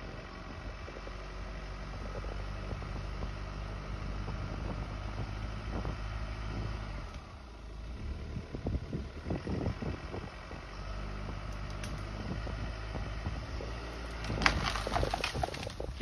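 A vehicle engine running steadily, apparently pulling on the tree, with a louder crackling rush of noise near the end.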